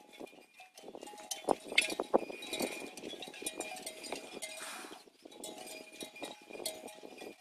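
Bells on grazing cattle clanking irregularly, in ringing strokes that come and go, with a cluster of sharp knocks and rustling between about one and three seconds in.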